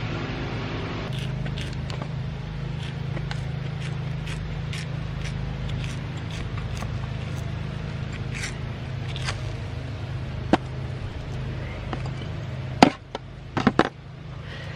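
Bark being pried and torn off a log by hand: scattered dry scraping and crackling, with a few sharper snaps about thirteen seconds in, over a steady low hum.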